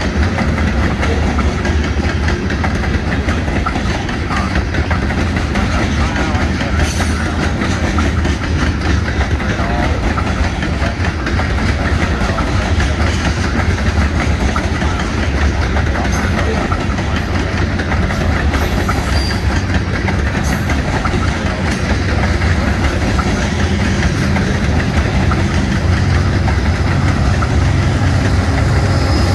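Loaded covered hopper grain cars rolling steadily past, their wheels clacking over the rail joints in a continuous rumble. Near the end the diesel engine of a GE AC44C6M locomotive at the rear of the train grows louder as it draws near.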